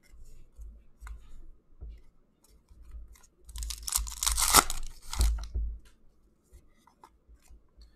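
A hockey card pack's wrapper torn open by hand: a crinkly tearing burst starting about three and a half seconds in and lasting about a second and a half. Light rustles and taps of cards being handled come before and after it.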